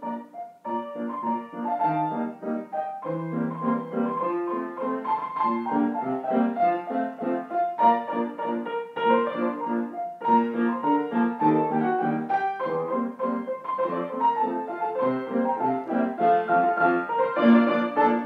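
Piano music: a piece of many quick, short notes.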